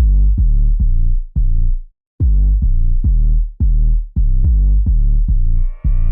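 Background electronic music: a loud, punchy bass line in short repeated notes, with a rising synth sweep near the end.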